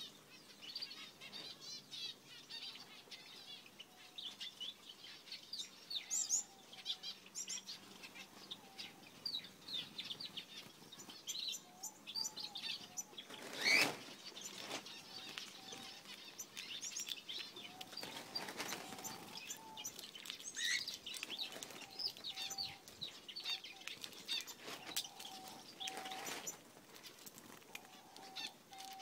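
Gouldian finches fluttering onto a hand, wings flapping, amid many short, high chirps from small birds. The loudest flutter comes about halfway through, with more flapping bursts later on.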